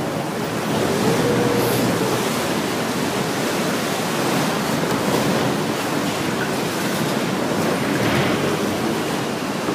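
Steady rushing of wake water churned up along the hull of a motor boat under way on a river.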